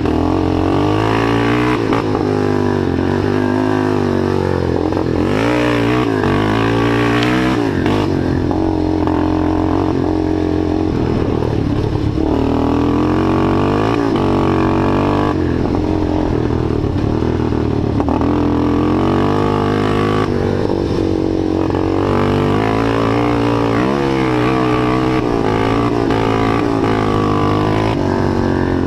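Rebuilt ATV's engine running under way, its pitch rising and falling again and again as the throttle is opened and closed.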